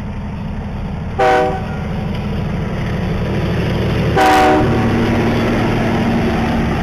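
Locomotive horn sounding two short blasts, about three seconds apart, over a steady low engine rumble.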